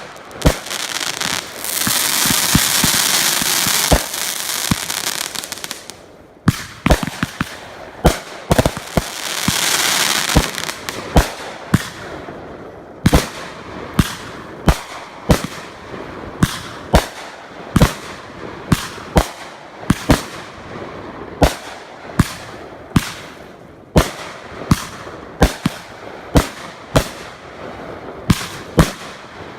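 Consumer fireworks going off: two long stretches of dense hissing crackle, each several seconds long, with sharp bangs among them. Then a steady run of sharp reports, about one and a half a second, like a multi-shot cake firing its tubes in turn.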